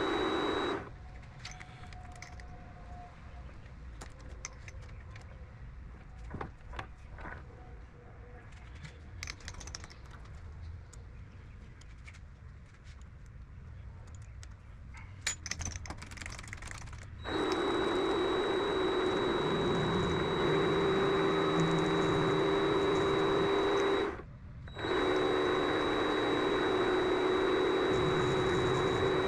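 A Vevor MX400 mini lathe's motor runs with a steady hum and high whine, then switches off about a second in. For about sixteen seconds there are only scattered clicks and knocks of handling tools and the workpiece. The lathe then starts again, stops briefly and starts once more.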